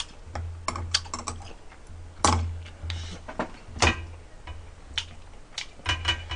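Metal chopsticks clicking, tapping and scraping against dishes and a metal pot of braised pork ribs, in irregular light clicks with a few sharper knocks.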